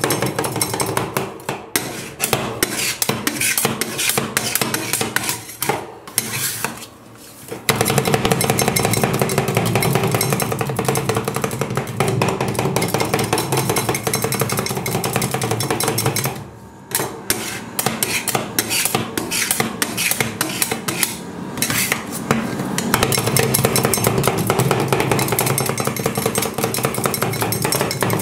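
Metal spatulas chopping and scraping ice cream mixture with cookie pieces on the frozen steel plate of a rolled-ice-cream machine: a quick, continuous run of clicks and scrapes. It stops briefly twice, about six seconds in and about sixteen seconds in.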